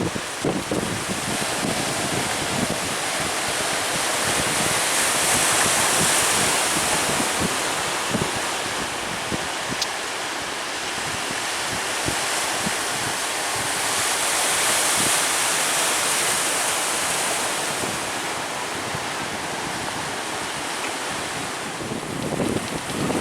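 Sea surf breaking and rushing, swelling loud twice about nine seconds apart, with strong wind buffeting the microphone.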